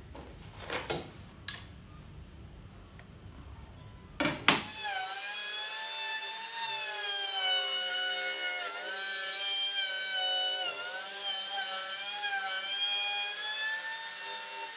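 A few short knocks as the router is handled, then about four and a half seconds in a DeWalt compact trim router runs with a high whine while its profile bit cuts the edges of stacked plywood pieces. The pitch dips slightly now and then as the bit takes the load.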